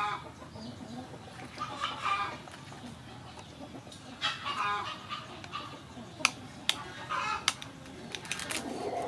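Chickens clucking in short calls several times. In between, a few sharp clicks as a knife cuts into the eggshells.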